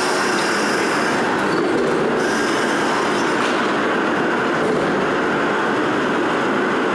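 Brass hot-forging machinery running with a loud, continuous mechanical din and a steady high whine; the hiss on top thins out briefly a little after a second in.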